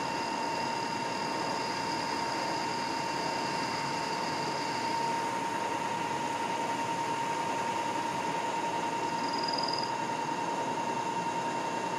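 Milling machine running steadily with a steady high whine, taking a plunge cut with an end mill.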